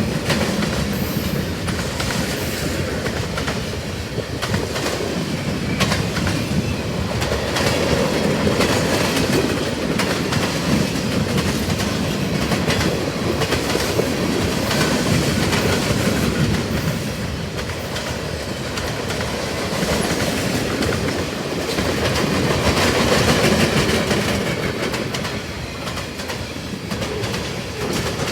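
CSX manifest freight train's cars rolling past at track speed: a steady rumble and rush of wheels on rail with rapid clicking over the rail joints, swelling and easing in loudness as the cars go by.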